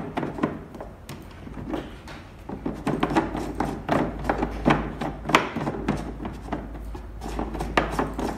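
Plastic filter cartridge being twisted by hand into the threaded housing of a tabletop reverse-osmosis water purifier: irregular clicks and scraping of plastic on plastic as it is screwed tight.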